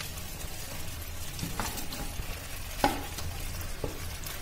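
Chicken pieces sizzling in hot oil and spice masala in an iron kadai, stirred with a spoon that scrapes and knocks against the pan four times, the loudest near the middle.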